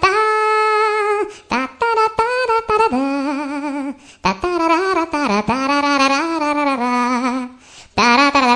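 A funny phone ringtone: a wordless melody with wavering pitch, played in several phrases with short breaks between them.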